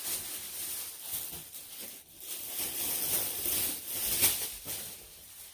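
Toy packaging, cardboard box and plastic, rustling and crinkling continuously as it is torn open.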